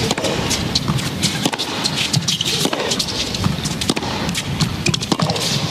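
Tennis arena crowd clapping and calling out between points: a dense, uneven patter of handclaps over a general hubbub.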